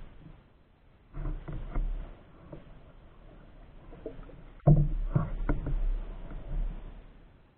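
Double-bladed paddle strokes in a canoe: the blades dip and pull through the water with splashing and swishing, louder in two spells, about a second in and again from about halfway for a couple of seconds.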